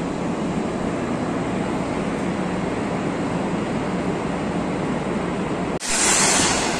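Steady rumbling hum of trains standing at an underground station platform, with their ventilation and auxiliary machinery running. Nearly six seconds in, the sound breaks off and a louder, hissier stretch of the same platform noise begins.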